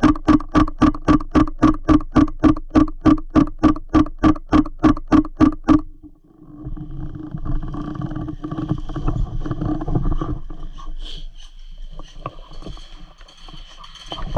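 Airsoft gun firing a rapid string of single shots, about four or five a second, each shot with the same short pitched ring, stopping about six seconds in. After that, rustling movement through undergrowth.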